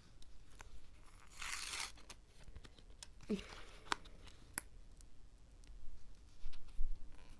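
A small paper packet being picked at and torn open by hand: a longer tearing rustle about a second and a half in, then crinkling and a few sharp ticks.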